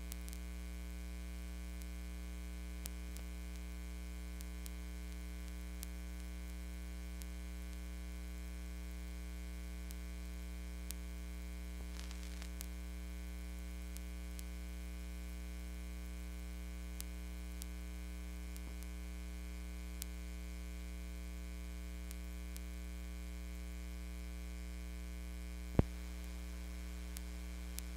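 Steady low electrical mains hum with many overtones, with faint scattered ticks and one sharp click near the end.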